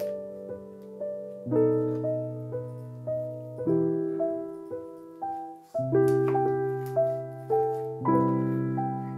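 Background piano music: a gentle melody of single notes over held chords that change about every two seconds.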